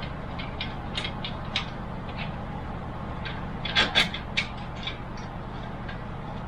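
Scattered small clicks and rattles of computer hardware being handled and fitted inside a PC case, with a cluster of sharper clicks about four seconds in, over a steady low hum.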